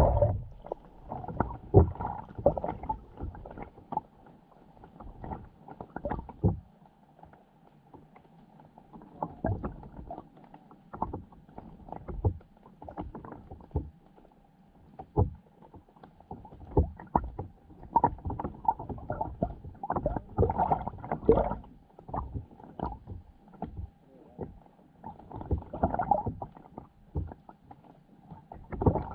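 Water moving around an underwater camera's housing as it is carried along: irregular knocks and sloshing bursts, with a faint steady hum underneath.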